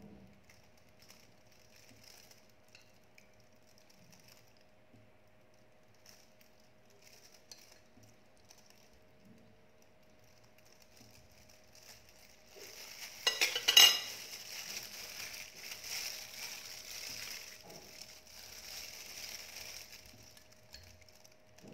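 A metal spoon scraping and lightly clinking on a ceramic plate as marinade is spooned and rubbed over slices of boiled pork belly, faint at first. About halfway through, a burst of sharp crackles is followed by several seconds of louder hissing crackle.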